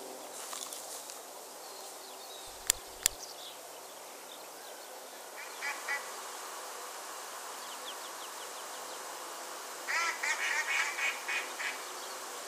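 Outdoor ambience with a steady hiss. Two sharp clicks come close together about three seconds in. Waterfowl call in runs of short, harsh, quacking notes: a brief run around six seconds in and a longer string near the end.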